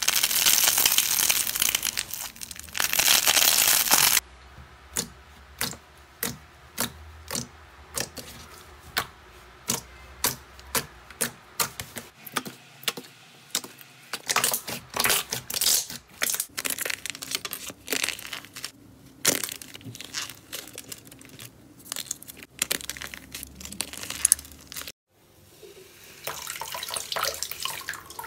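Slime being squeezed and stretched by hand: a dry, porous foam slime crackling densely for about four seconds, then a sticky glossy slime giving a long run of sharp pops and clicks, about one or two a second. Near the end, water hisses in a sink as a wet glitter sponge is handled.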